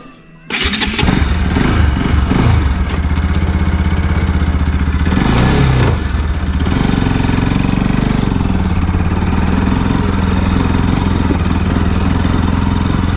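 Motorcycle engine starting about half a second in, then idling steadily, with a short blip of the throttle about halfway.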